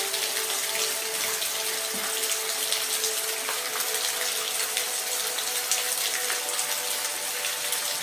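Steady rain falling, a dense even hiss with faint scattered drop ticks, over a faint steady hum of a few low tones.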